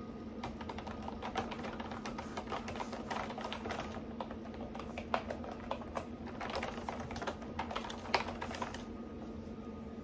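Typing on a computer keyboard with round, typewriter-style keycaps: a quick, uneven run of key clicks that stops about a second before the end, with one sharper keystroke just before it stops.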